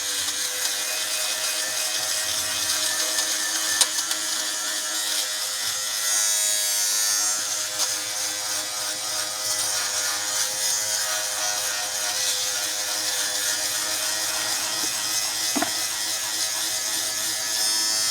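Battery-powered Philips fabric shaver running, its small motor giving a steady hum with a hissy buzz as it is passed over fabric to cut off pills. A faint click sounds about four seconds in.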